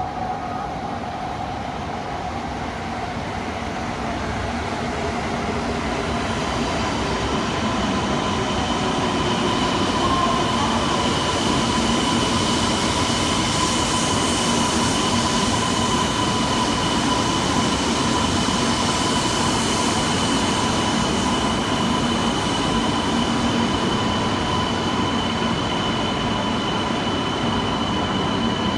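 A Shinkansen bullet train running into an underground station platform. Its rumble builds over the first several seconds and then holds steady, with thin, steady high-pitched squeal tones from the wheels and brakes above it.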